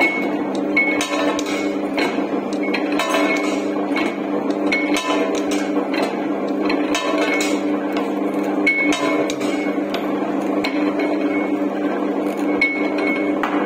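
Naphthalene ball and camphor tablet making machine running: a steady motor hum with a sharp metallic clink of the steel punch in its die roughly once a second as it presses the powder.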